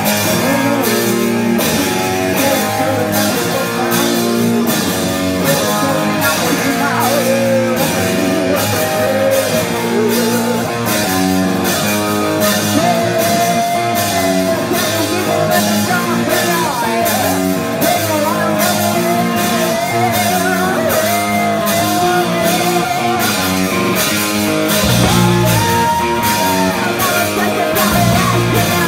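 A rock band playing live: a woman sings into a microphone over electric bass, electric guitar and a drum kit keeping a steady beat.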